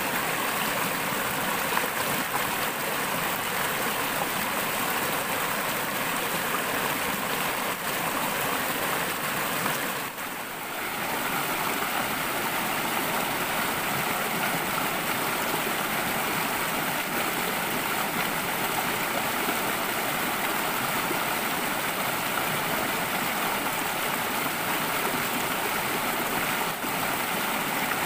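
A small forest stream rushing over rocks: a steady noise of running water that dips briefly about ten seconds in, then carries on.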